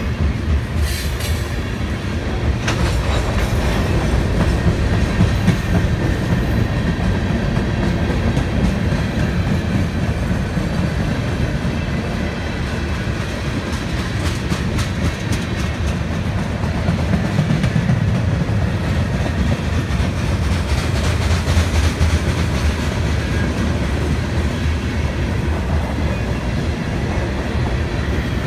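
Freight cars of a CSX manifest train rolling past close by: a steady rumble of steel wheels on the rails, with clacks over the rail joints, heaviest about 20 seconds in.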